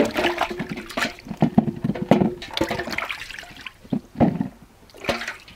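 Hands washing apples in a large aluminium basin of water, with uneven splashing and sloshing that eases off near the end.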